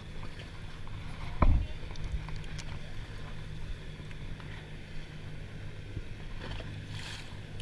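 Distant motorboat engine droning steadily, with one sharp knock about a second and a half in, the loudest sound.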